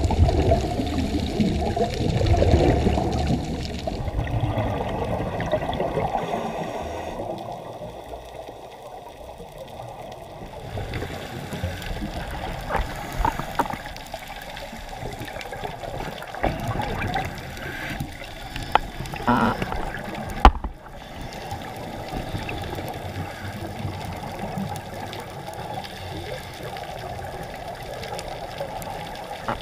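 Underwater camera sound: a steady rush of water with bubbling, louder with low surges in the first few seconds and shifting abruptly several times. A single sharp knock about 20 seconds in.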